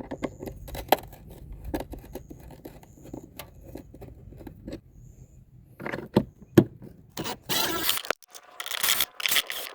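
Scattered clicks and scraping from hands working over a car's plastic air filter housing. Longer, louder scrapes come in the last couple of seconds.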